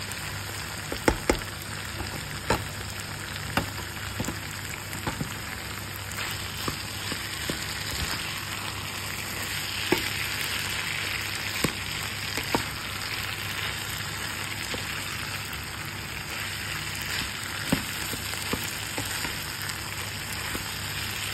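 Beef with diced carrots and tomato sizzling steadily in a frying pan, with a spoon knocking sharply against the pan now and then as it is stirred.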